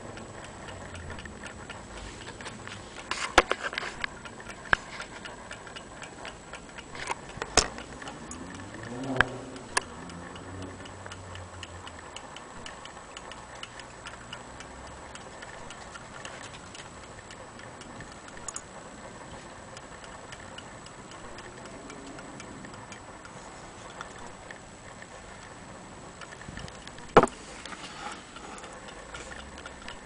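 Antique brass birdcage clock ticking steadily, with a few louder sharp knocks now and then, the loudest near the end.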